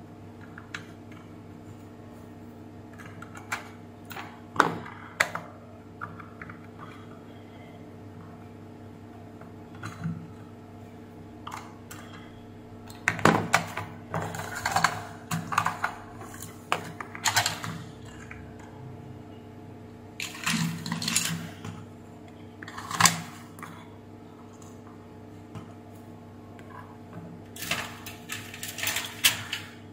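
Scattered plastic clicks, knocks, rattles and scrapes as a Scarlett steam iron's plastic housing is taken apart by hand, with a steady low hum underneath.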